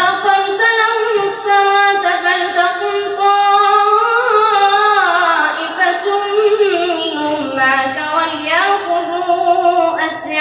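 A boy's voice reciting the Quran in a melodic chant into a microphone, drawing out long, ornamented notes that slide up and down in pitch.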